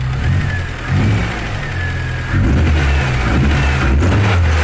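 Fiat Tempra engine running, with its level stepping up about a second in and again around two and a half seconds, as if lightly revved. Faint high, slowly falling whine-chirp from the alternator belt, the cricket-like "grilado" that is very faint at this moment. The owner blames the belt, though a bearing or the water pump pulley could be at fault.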